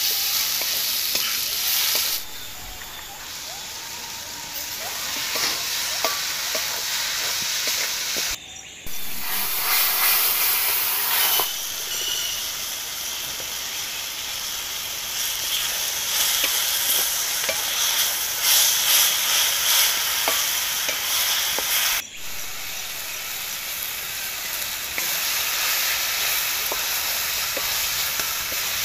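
Onions, tomatoes and chillies sizzling in a hot metal wok while being stirred with a spatula, a steady frying hiss with small scrapes and clicks of the spatula on the pan. The sound drops out briefly twice.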